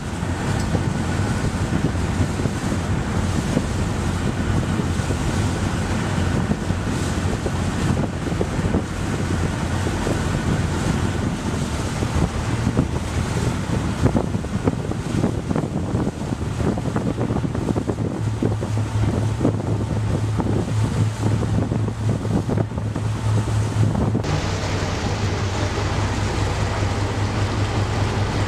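Wind buffeting the microphone over the rushing noise of a ship at sea, with a steady low hum underneath. The sound shifts abruptly about 24 seconds in.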